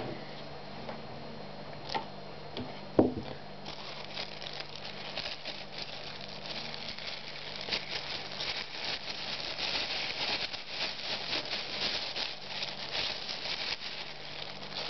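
Aerosol spray can hissing in a rapid run of short spurts for about ten seconds, starting about four seconds in. A single sharp knock comes a second before.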